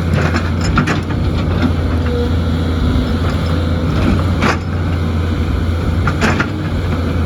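JCB excavator's diesel engine running steadily, with a faint whine coming and going and several sharp knocks and clatters from the machine at work, the loudest about four and a half and six seconds in.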